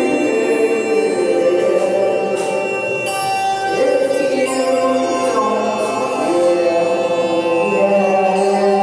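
Live music: slow, chant-like singing over long held notes, the chord moving to a new pitch a few times.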